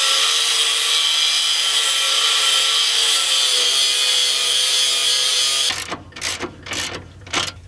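Angle grinder cutting a notch into a metal bracket: a loud, steady grind with a whine that drops slightly in pitch midway as the disc bites. It stops abruptly about six seconds in, and a quick run of ratchet clicks follows as a socket wrench turns a nut.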